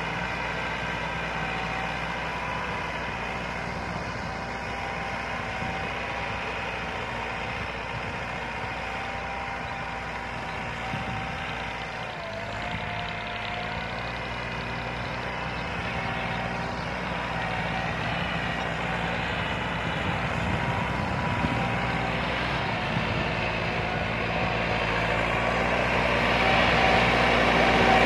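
Massey Ferguson 375 tractor's Perkins four-cylinder diesel engine running steadily under load while pulling a cultivator through tilled soil. The engine note dips briefly about halfway through, and the engine grows louder near the end as the tractor comes close.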